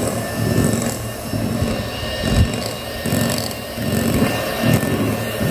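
Philips electric hand mixer running steadily, its motor giving a steady whine while the twin beaters churn through thick cake batter in a glass bowl with an uneven, pulsing sound.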